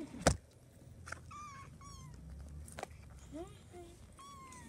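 Kittens mewing: about four short, high-pitched mews, with a sharp knock near the start.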